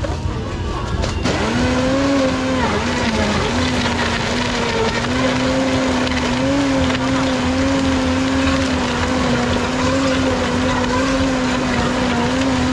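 High-speed countertop blender motor starting about a second in and running at full speed, crushing ice and fruit into juice. It makes a steady hum whose pitch wavers slightly as the load shifts.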